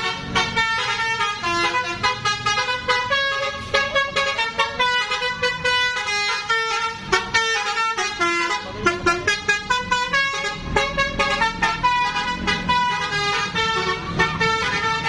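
Bus 'telolet' horn, a Basuri multi-trumpet musical horn, playing a fast melody of short stepped notes over the bus's low engine rumble.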